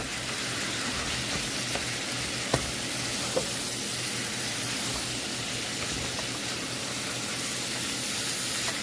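Ground chuck and onions sizzling steadily as they brown in a frying pan, with a few light taps near the start and around two and a half to three and a half seconds in.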